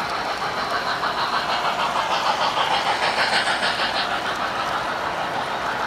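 Model trains running on a layout: a freight train of refrigerator cars rolls past close by, its wheels clicking rapidly over the track and growing louder for a couple of seconds in the middle, over the steady running noise of the other trains.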